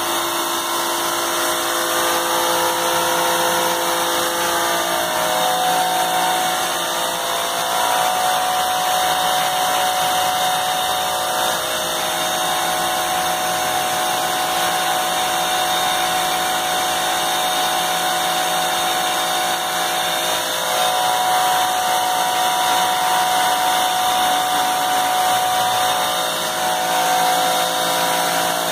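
High-pressure washer running steadily: the whine of its motor and pump over a constant hiss, the pitch shifting slightly a few times.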